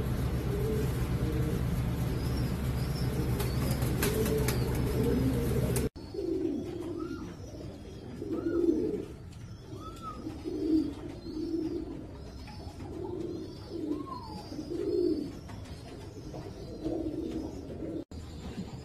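Domestic fancy pigeons cooing, a run of repeated low coos. At first they sit over a steady hum and hiss. After a cut about six seconds in they are clearer, with occasional short higher chirps.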